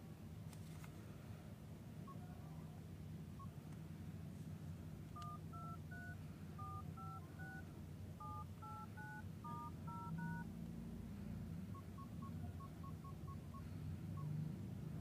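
Nokia N97 touchscreen dialler playing DTMF key tones as the keypad is pressed in order, 1 through 9, then star, 0 and hash: twelve short, evenly spaced two-tone beeps. A few seconds later comes a quick run of short single-pitch key beeps.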